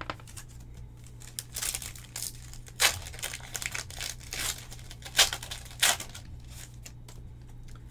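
A trading-card pack's foil wrapper being torn open and crinkled by hand, in a string of sharp crackling rustles, loudest about three and five seconds in.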